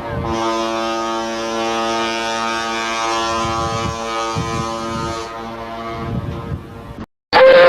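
Ship's horn sounding one long steady blast, with wind buffeting the microphone. The blast fades out about five seconds in, and after a brief cut a second, louder ship's horn starts near the end.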